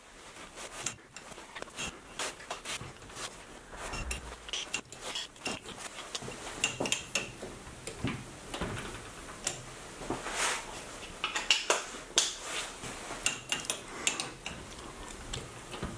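Irregular metallic clicks, clinks and short scrapes, several a second, some ringing briefly, from a lathe carriage and threading tool scribing 1-degree graduation lines on a metal dial while it is indexed round between cuts.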